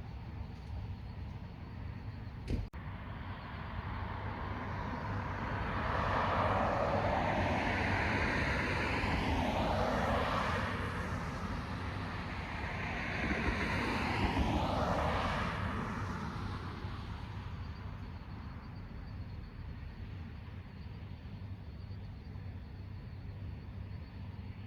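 Two cars passing one after the other, their tyre and engine noise swelling up, peaking twice and fading away, over a steady low rumble. A single sharp click comes before the cars approach.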